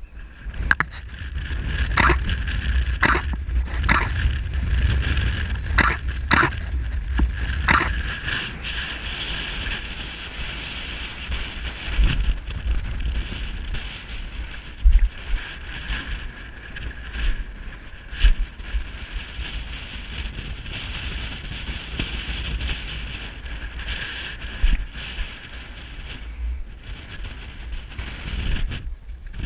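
Wind buffeting an action camera's microphone: a steady low rumble with a higher hiss over it, and a few sharp clicks in the first eight seconds or so.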